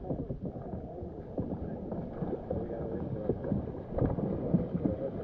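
Kayak out on the river: paddle splashes and water sounds with irregular knocks, under a steady wind rumble on the microphone.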